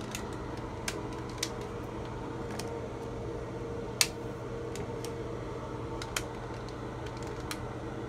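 Steady low electric hum from a wall-mounted hotel hair dryer that is switched on but does not work. Scattered sharp clicks are heard against it as the dryer and its wall unit are handled; the loudest comes about four seconds in, as the switch on the wall unit is pressed.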